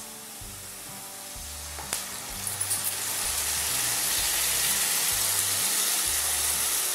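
Onions sizzling in hot oil in a wok; about two seconds in, water-soaked spice masala goes in and the sizzle swells to a loud, steady hiss as it is stirred. Low background music notes run underneath.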